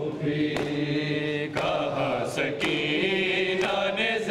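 Men's voices chanting a noha in unison, a slow sung lament in Urdu. Sharp beats about once a second run under it, fitting matam, the rhythmic chest-beating that keeps time with the recitation.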